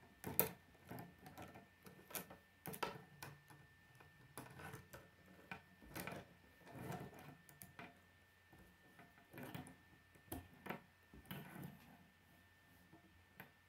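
Plastic K'nex rods and connectors clicking and knocking irregularly as they are fitted and adjusted by hand on a wooden tabletop, the loudest knock about half a second in.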